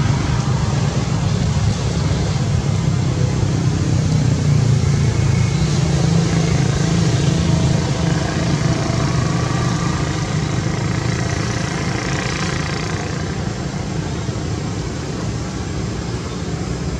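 Steady low rumble of background noise, even in level throughout.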